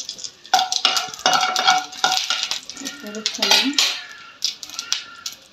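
A slotted spatula scraping and clattering against a non-stick kadai as dried red chillies and seeds are stirred while tempering in hot oil. It comes in quick, irregular scrapes and knocks with a ringing note, busiest in the first half.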